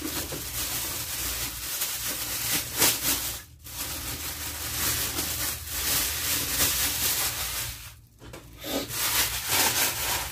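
Thin plastic bag rustling and crinkling as a head of cauliflower is worked out of it, with two short pauses.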